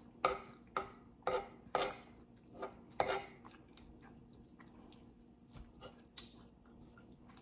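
Metal spoon clinking and scraping as it scoops rice and beans, with about six sharp clinks in the first three seconds and a few softer ones near the end.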